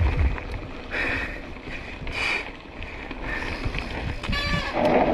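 Wind buffeting the microphone, with the rumble and rattle of a mountain bike riding fast down a dry dirt trail. Near the end there is a short squeal, then a louder rushing hiss.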